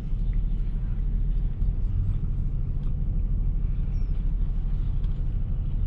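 Steady low rumble of an idling vehicle engine, with a few faint light clicks over it.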